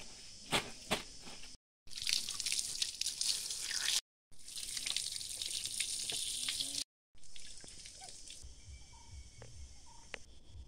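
Running water pouring and splashing over a puppy held under a stream for a bath. It comes as two stretches of steady hiss, each a few seconds long, broken by abrupt cuts.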